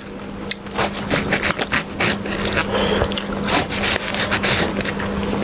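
A knife sawing through a paper-wrapped egg chicken roll on a paper plate, with irregular crackling and rustling of the wrapper over a steady low hum.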